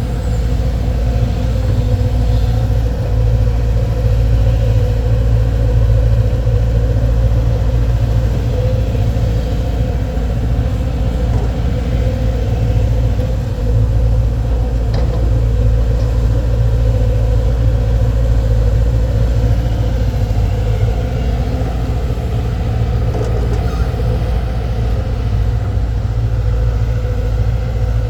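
Four-cylinder diesel engines of hydraulic excavators running steadily as they work soil, a loud low engine sound that holds fairly even throughout.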